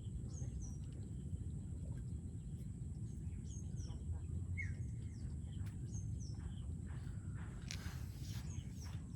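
Birds chirping: short, high, downward-slurred calls repeating every couple of seconds over a steady low rumble. A brief rustling noise comes near the end.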